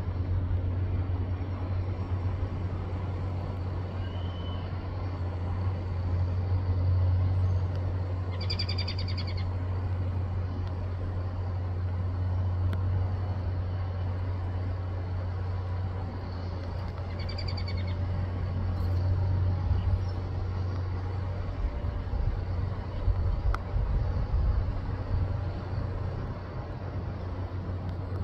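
A bird gives a short, high call, repeated about every nine seconds, over a steady low hum.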